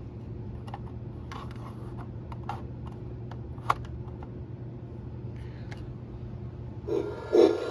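Steady low electrical hum from a powered Lionel O scale model railroad operating car, with scattered small mechanical clicks. Near the end a louder pulsing sound starts, about two or three pulses a second.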